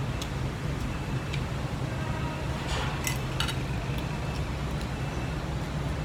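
Steady low rumble of city traffic, with a few light clinks of tableware, most of them around the middle.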